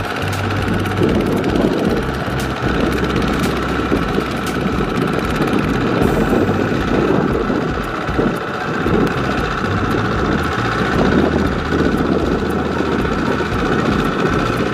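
Kubota walking hand tractor's single-cylinder diesel engine running steadily under load while its steel cage wheels churn through a flooded rice paddy, with water and mud splashing around the wheels.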